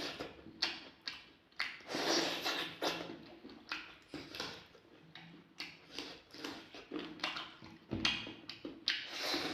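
Close-miked eating sounds: wet chewing and lip smacks in an irregular series as chicken is eaten.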